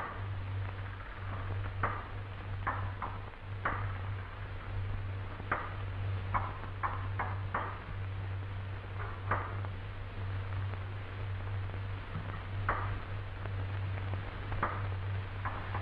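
Hand tools clinking and tapping on metal aircraft parts as mechanics work: irregular short, sharp taps, some in quick pairs, over a steady low hum.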